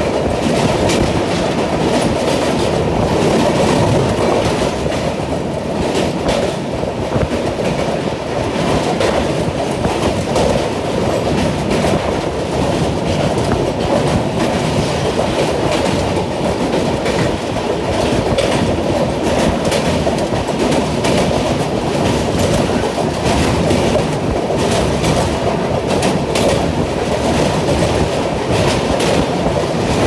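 Train running across a steel truss bridge, heard from on board: a loud, steady rumble of wheels on the rails.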